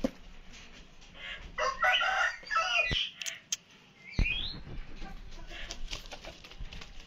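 Aseel chickens calling: a loud, drawn-out call lasting about a second and a half, starting about a second and a half in, then a short rising squawk with a thump about four seconds in.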